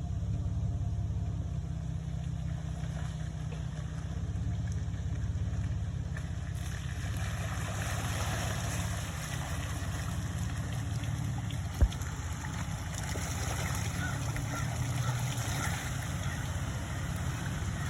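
Jeep TJ engine running with a steady low rumble while the Jeep churns through a water-filled mud hole, a rushing, splashing noise joining from about six seconds in. A single sharp knock near the middle.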